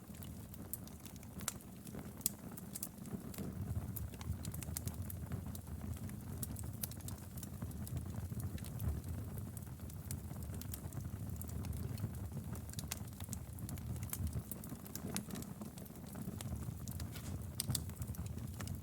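Wood fire burning in a fireplace: a steady low rumble with frequent irregular crackles and sharp pops.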